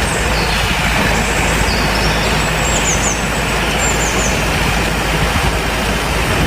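Steady rush of running water washing mud off a toy tractor.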